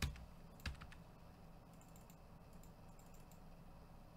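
Computer keyboard being typed on: a sharp key click at the start and another a little later, then a few faint taps over quiet room tone.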